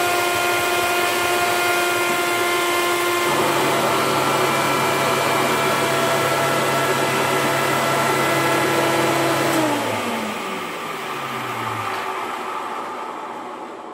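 Hoover Commercial Dual Purpose upright vacuum cleaner (C1417) running, its motor and fan giving a steady whine that shifts in tone about three seconds in. Nearly ten seconds in it is switched off and winds down, its pitch falling away over a few seconds. The owner hears in its running a cooling fan clogged with dirt.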